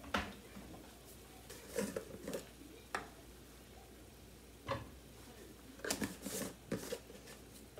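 Irregular clinks and knocks of kitchen handling: a glass jar of bouillon and a spoon knocking against the jar and the pans as bouillon is added to a saucepan, about ten short sharp sounds with quiet gaps between.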